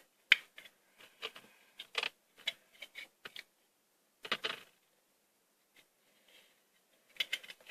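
Small plastic clicks and taps from a flashlight's casing and stuck switch button being pried at by hand, irregular, with a short scrape about four seconds in and a quick run of clicks near the end.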